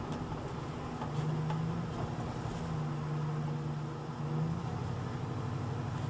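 Old Dodge pickup truck heard from inside its cab while cruising at steady speed: a steady low engine drone with road noise.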